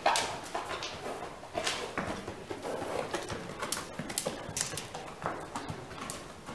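Hooves of a small horse walking on sandy indoor-arena footing: a run of irregular hoofbeats, roughly two a second.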